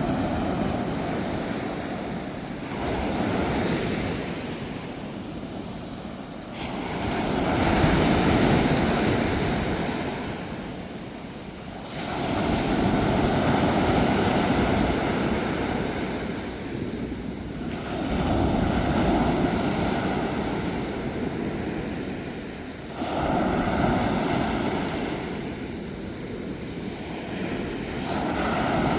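Ocean waves breaking on a shore, the surf swelling and falling back in surges every three to five seconds.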